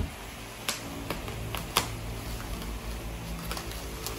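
Scissors snipping and cutting through black plastic wrap and packing tape, a handful of sharp clicks scattered over the seconds, over a low steady hum.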